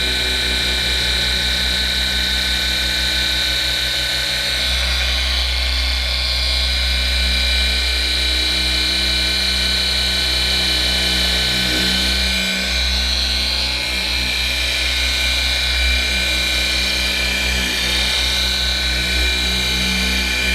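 Dual action polisher running steadily with a constant high whine, buffing car paint with a finishing polish.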